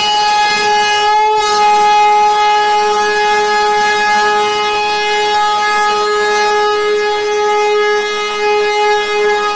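Indian Railways WAP-7 electric locomotive sounding a long, steady, loud horn note that holds one pitch without rising or falling.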